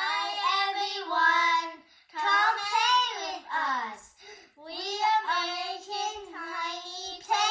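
A child singing a tune in a high voice, in three phrases with short breaks between them.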